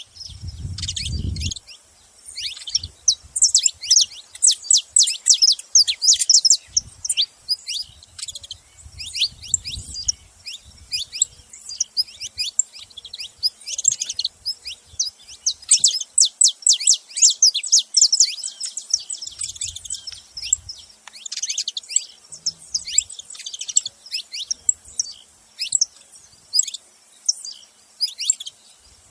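Saffron finch (canário-da-terra) calling and singing in fast, high chirps, coming in long runs with short gaps. A few dull low thuds are heard now and then underneath.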